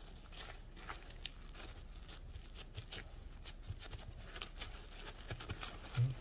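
Plastic food wrap crinkling in short, scattered crackles as hands squeeze and shape sticky rice inside it, with a brief low thud about six seconds in.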